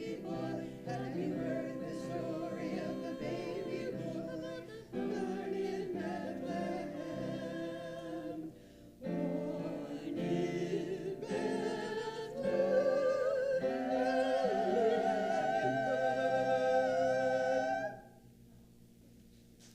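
A choir singing, its notes sung with vibrato and growing fuller toward the end, closing on a long held final chord that stops about 18 seconds in.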